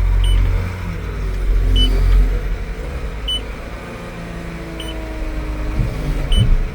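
John Deere 724P wheel loader's diesel engine running under the cab with a steady low rumble, while its reverse alarm beeps once about every second and a half as the loader backs up. A whine joins in for a couple of seconds past the middle, and a few low knocks come near the end.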